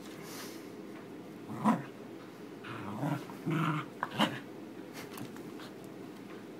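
Pembroke Welsh corgi growling while tugging on a rope toy: a low steady growl, with several short, louder growls between about one and a half and four and a half seconds in.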